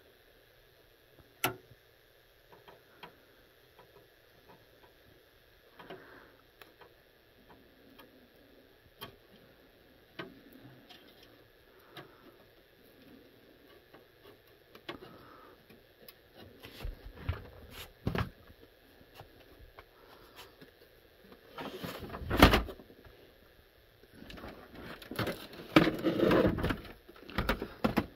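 Hands working on a TRS-80 Model 4 motherboard: small clicks and taps as a plug-in board is pressed into its socket, with one sharp click about a second and a half in. Louder knocks and rubbing follow near the end as the computer's case is handled.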